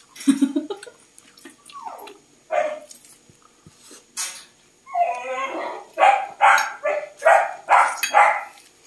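A dog barking: a few scattered sounds in the first half, then a quick run of six or so barks about half a second apart in the second half.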